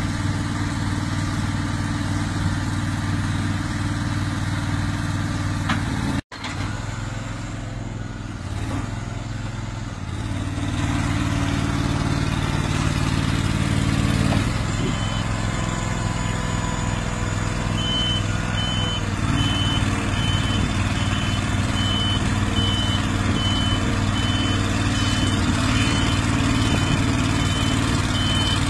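Engine of a tracked miniature car wrecker running steadily while it manoeuvres under and lifts a car. From about halfway through, a high-pitched warning beeper sounds a steady series of short beeps.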